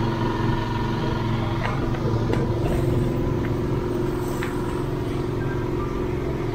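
A motor vehicle's engine idling steadily, with a few light clicks.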